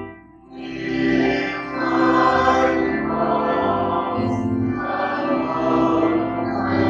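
Hymn singing: a group of voices singing with instrumental accompaniment in sustained notes. A brief gap just after the start, then the singing resumes.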